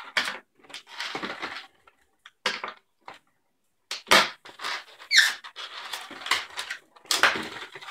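Latex modelling balloons rubbing and squeaking as they are twisted and handled, in irregular bursts with short pauses and a brief squeal about five seconds in.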